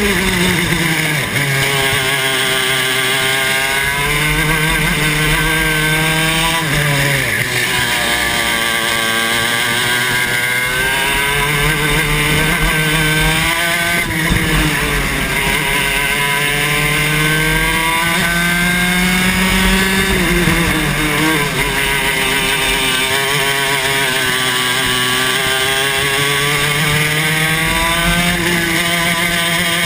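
Club 100 TKM 115cc two-stroke kart engine heard close up from on board, revving high along the straights and dropping in pitch as the driver lifts for corners, then climbing again, several times over.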